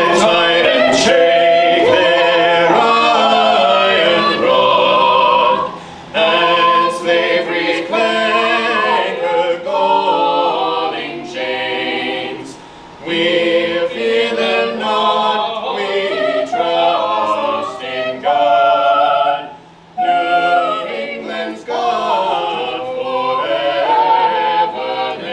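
A choir singing, in phrases with brief pauses between them.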